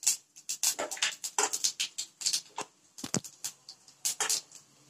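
Mustard seeds spluttering in hot oil in a stainless steel kadai, with chana dal frying: irregular sharp pops and crackles several times a second. One heavier knock comes about three seconds in.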